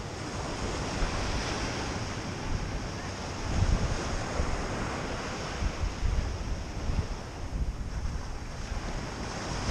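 Small ocean waves breaking and washing up a sand beach, with wind buffeting the microphone in uneven gusts, strongest about three and a half seconds in.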